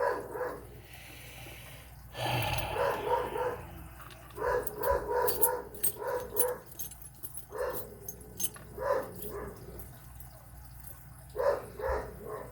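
A dog barking repeatedly in short bursts, an alert bark that the owner takes for a delivery or someone at the house. A few light clicks come through the middle of the barking.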